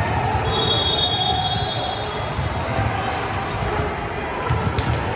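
Basketball game noise in a gym: a ball bouncing on the hardwood court with irregular low thuds among general hall noise, and a thin high squeal lasting over a second, starting about half a second in.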